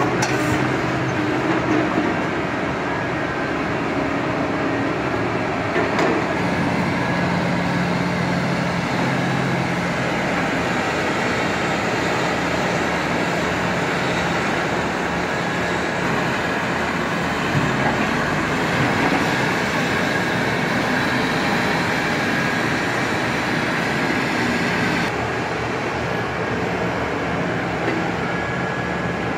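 Steady running of heavy diesel port machinery: an excavator-type material handler's engine and hydraulics working a log grapple, with a terminal tractor's engine moving log trailers. A steady hum runs under it, with a couple of brief knocks.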